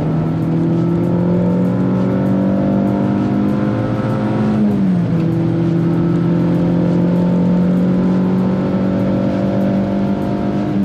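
Renault Clio 172 Cup's 2.0-litre four-cylinder engine accelerating hard through the gears, heard from inside the cabin with the induction noise of a K-Tec open cone air filter. The engine note climbs steadily, drops at a gear change a little under halfway through, climbs again and drops at a second shift near the end.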